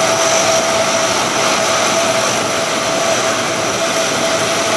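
Lockheed C-130 Hercules's four turboprop engines running as the aircraft taxis: a loud, steady rush with a steady high whine on top.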